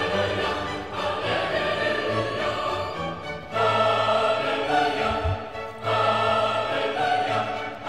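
Background classical music with sustained singing voices, in long held phrases.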